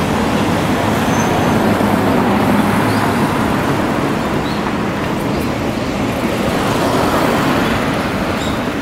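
Steady city street traffic noise, with a car passing close by near the end.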